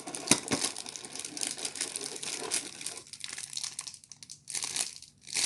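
Packaging being crinkled and handled while a hair clipper is unboxed: an irregular run of crackles and sharp rustles, with short pauses in the second half.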